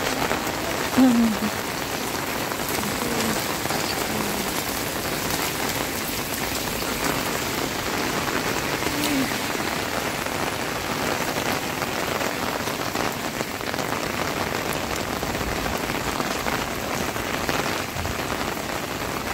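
Heavy rain falling steadily on outdoor surfaces, an even hiss of many drops. A brief louder sound comes about a second in.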